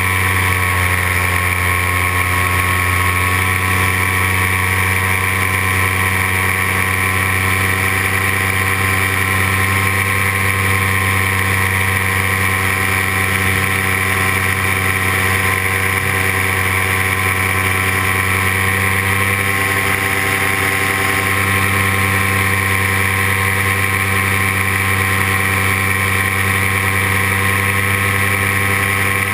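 Paramotor engine and propeller running at a steady cruise throttle, an even drone that holds one pitch.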